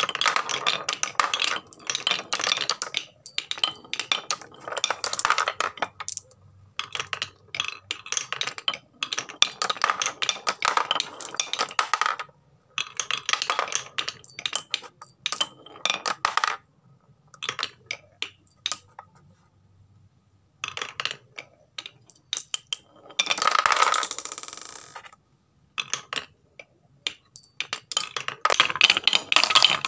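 Marbles rolling and clattering down a HABA wooden marble run, with rapid clicks and clinks as they knock against the wooden track pieces and a small metal bell ringing as they pass through the bell block. This comes in bursts with short pauses between runs of marbles.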